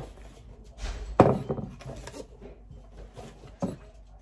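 Knocks and handling noises as a ceramic cauldron oil burner and its packaging are moved about, with the loudest thunk about a second in and another near the end.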